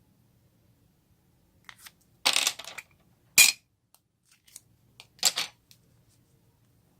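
Homemade slime being squished and mixed by hand: a few short bursts of crackling and popping, the sharpest a single snap about three and a half seconds in.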